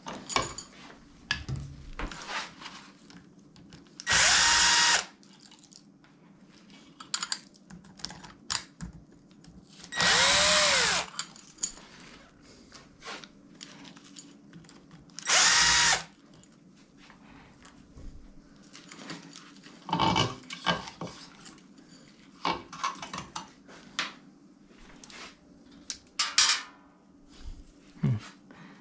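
Cordless drill-driver run in three short bursts of about a second each, several seconds apart, with a whining motor pitch that rises and falls in the middle burst, undoing the nuts on the heating-element flange of an electric storage water heater. Between the bursts come clinks and knocks of metal parts being handled.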